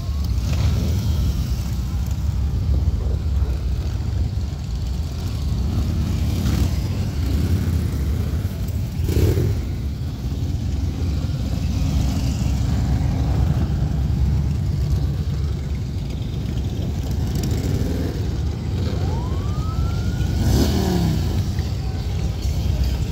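A procession of Harley-Davidson motorcycles riding slowly past, their V-twin engines making a dense, steady low rumble, with a couple of louder throttle blips from passing bikes.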